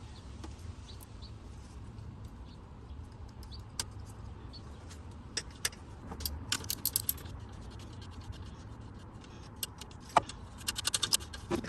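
Small metal tools and engine parts being handled: scattered sharp clicks and clinks, coming in quick clusters near the middle and near the end, over a steady low hum.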